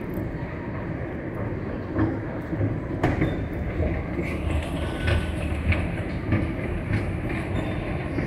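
Subway escalator running upward, heard from on the steps: a steady low rumble with irregular clicking and rattling of the moving steps, starting about two seconds in.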